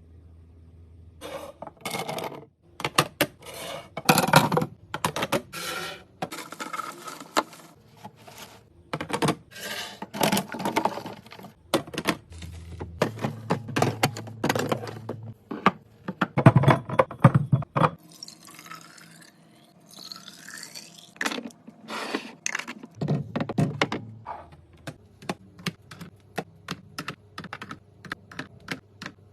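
Irregular clicks, taps and clunks of plastic storage containers and food items being handled and set down in a fridge. A softer swishing stretch comes around twenty seconds in, under a faint low hum.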